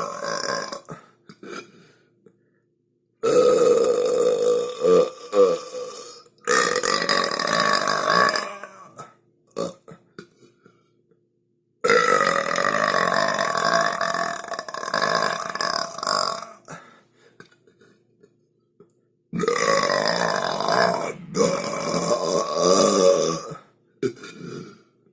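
A run of long, loud human burps, four of them, each drawn out for about three to four and a half seconds, with sudden dead silence between them.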